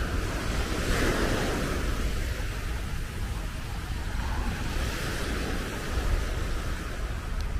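Sea surf washing onto the beach, swelling about a second in and again near five seconds, over a low rumble of wind on the microphone.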